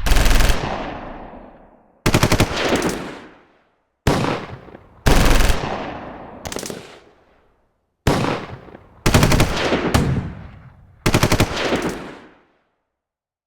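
Short bursts of machine-gun fire, about eight of them spaced one to two seconds apart. Each is a quick string of shots that rings away in a long echo.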